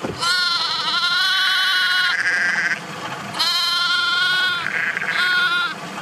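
Lamb bleating: two long, quavering bleats and a shorter third one near the end. It is a young lamb left by its mother, calling out as it is taken to a ewe.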